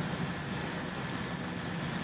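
Steady background room noise: a low hum under an even hiss, with no distinct events.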